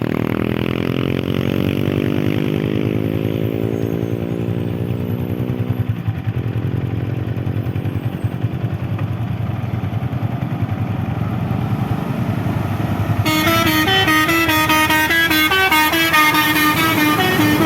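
Heavy diesel engine of earth-moving machinery climbing steadily in pitch as it revs up, breaking off about six seconds in and then running on steadily. Background music with a melody comes in over the engine about three-quarters of the way through.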